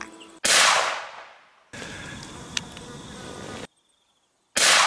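Two .22-250 Remington rifle shots, one about half a second in and one near the end, each a sudden bang whose echo dies away over about a second.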